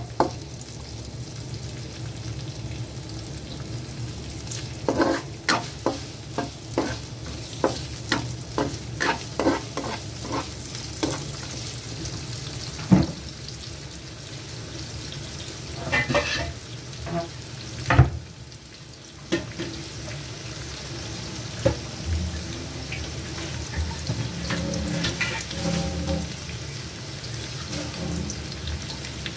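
Shallots, garlic and ginger sizzling in a little hot oil in a frying pan while being stirred, the utensil scraping and knocking against the pan again and again. The aromatics are being sautéed until fragrant.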